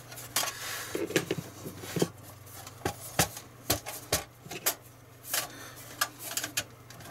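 Irregular metallic clicks, taps and scrapes as a screwdriver pries at the sheet-steel case of a satellite TV receiver and the metal top section is worked loose. The section is stuck fast.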